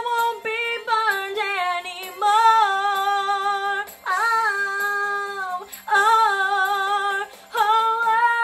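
A woman singing a Broadway show tune: a run of long, steady held notes in short phrases with brief breaks between them.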